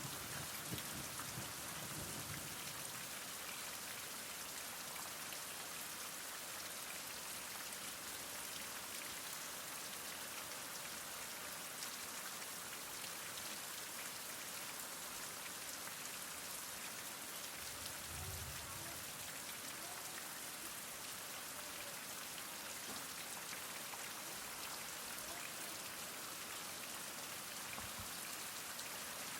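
Heavy rain falling steadily, a dense even hiss of drops on surfaces, with a brief low rumble near the start and again about 18 seconds in.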